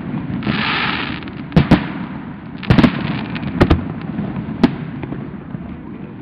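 Aerial fireworks display: a hissing rush about half a second in, then a string of sharp bangs from bursting shells, some in quick pairs and clusters. It ends with a single bang near the end.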